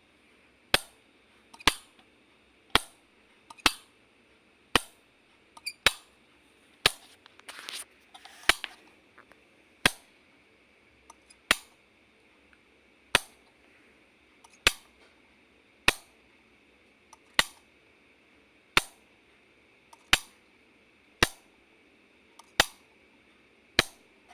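Light switch clicked over and over, one sharp click roughly every second, with a brief soft rustle around the eighth second.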